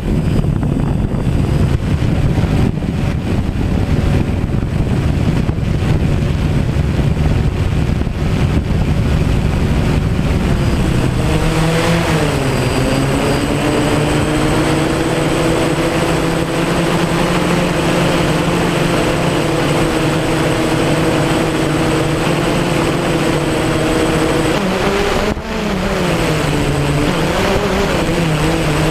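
DJI Phantom quadcopter's motors and propellers humming steadily, with heavy wind buffeting on the microphone. About eleven seconds in the wind noise eases and the propeller hum comes through clearly; its pitch dips and recovers twice, about a second after that and again near the end, as the throttle changes.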